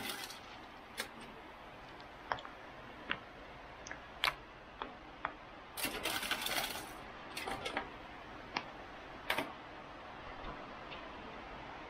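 Scattered light clicks and taps from handling around a plastic food container, with a brief rustle about six seconds in.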